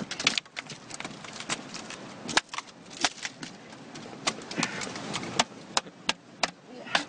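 Landed fish flopping on wet rocks: a run of irregular sharp slaps and clicks.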